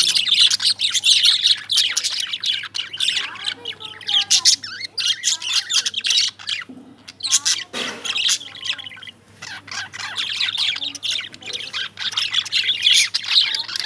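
Several caged lovebirds chirping and squawking in quick, overlapping high calls, thinning out for a few seconds in the middle before picking up again near the end.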